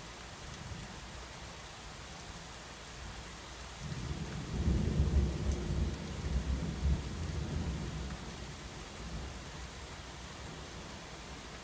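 A low rumble of thunder over steady rain. The rumble starts about four seconds in, is loudest for a couple of seconds, then fades away.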